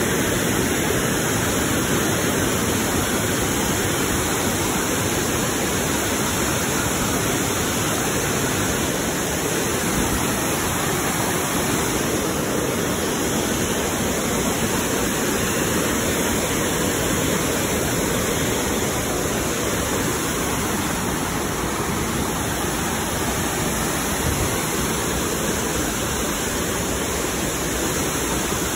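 Waterfall and stream water rushing steadily over rocks, an even continuous noise with no breaks.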